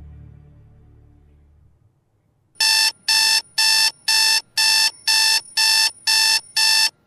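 Smartphone alarm beeping: nine short, identical electronic beeps, about two a second, starting between two and three seconds in and stopping suddenly near the end. A low drone fades out before the beeps begin.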